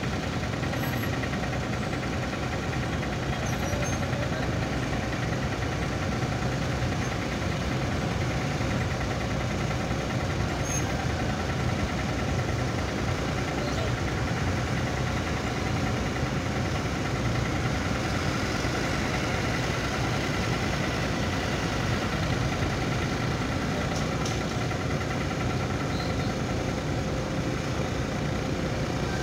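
Ship's diesel engine running steadily: a constant drone with a steady hum held throughout.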